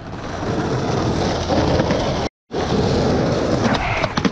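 Skateboard wheels rolling over rough concrete, a steady low rumble that cuts out for a moment a little past halfway. Near the end come a few sharp clacks as the board is popped up toward a concrete ledge.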